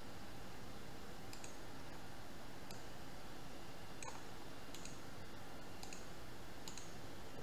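Computer mouse button clicks, about six spaced a second or so apart, over a steady background hiss.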